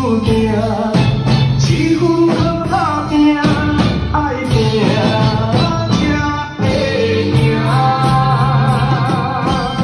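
Several drum kits played together along to a rock-style song with a sung vocal: drum and cymbal hits over the singing, which ends in a long held note with vibrato near the end.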